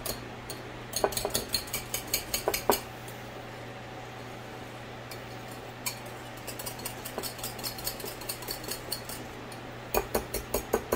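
Metal spoon stirring a thick mayonnaise dressing in a ceramic bowl, clinking against its sides in quick runs of taps. Near the end a wire whisk knocks against the bowl more heavily. Under it runs the steady low hum of a kitchen fan.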